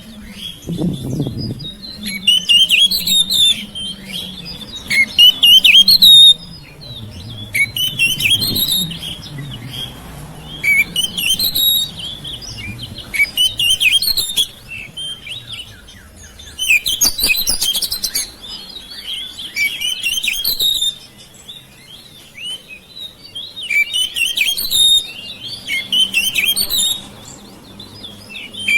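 Oriental magpie-robin (kacer) singing loud bursts of rapid chirps and whistles, phrase after phrase every couple of seconds with short pauses between.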